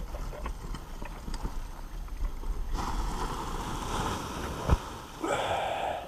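Paramotor trike rolling out on grass with wind buffeting the microphone, then a louder stretch of rustling as the paraglider wing's fabric comes down onto the ground, with a single sharp thump late on.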